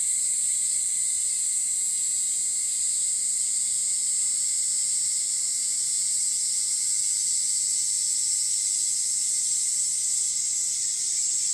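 Dense summer chorus of cicadas and crickets: a steady, high-pitched shrill that runs on without a break, with a fainter, lower steady tone beneath it.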